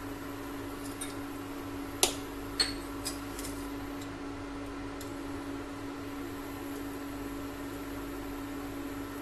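Induction cooktop running under a pressure cooker of heating oil: a steady electrical hum with a constant low tone. A few light clicks and knocks, the loudest about two seconds in.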